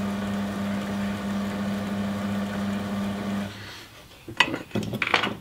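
Small electric motor of a rod-wrapping machine running steadily with a hum, turning the rod blank as thread is whipped onto it, then stopping about three and a half seconds in. A few light knocks follow near the end.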